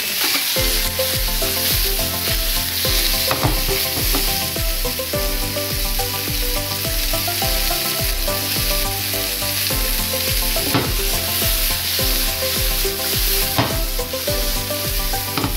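Sliced mushrooms and garlic sizzling steadily in hot olive oil in a frying pan, with the pan tossed near the end. Background music with a steady beat plays underneath.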